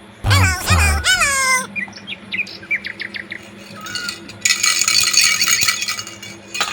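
A string of sound effects: a few loud swooping, falling whistle-like tones, then a quick run of short rising chirps, then about two seconds of shimmering rattle.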